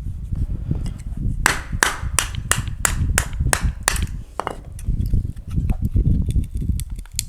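Knife being batoned through dry birch kindling: its spine struck again and again, about nine sharp knocks at roughly three a second, then a few weaker ones.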